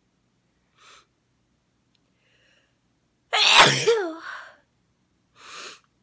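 A woman sneezes once, loudly and uncovered, about three seconds in, the burst trailing off in a falling voiced tail. A short breath comes before it and another breath after it.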